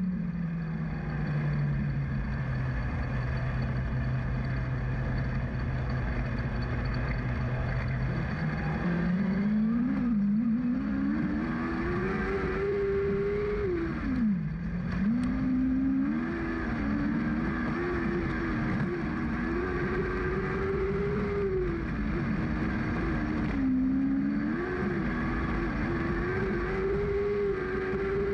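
Lightning Sprint speedway car's engine heard from on board: it holds a low, steady note for about eight seconds, then the revs climb and rise and fall under racing throttle, with brief sharp drops where the driver lifts off for the turns.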